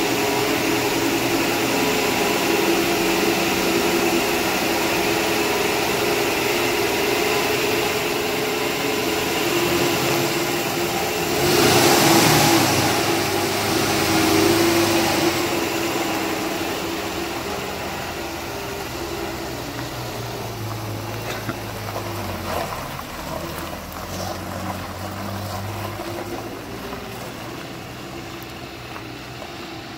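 1965 Mercury M100's freshly rebuilt 300 cubic-inch straight-six running, with a louder surge about twelve seconds in as the truck pulls away, then growing fainter as it drives off.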